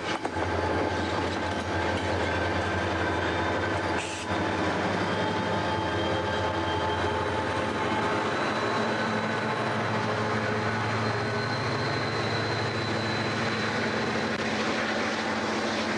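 Freight train hauled by diesel locomotives rolling past, with a steady rumble of wheels on rail. A faint high whine is held through the middle.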